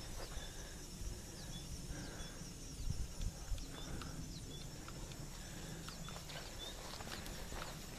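Footsteps on a woodland dirt trail, with small birds chirping in short repeated notes.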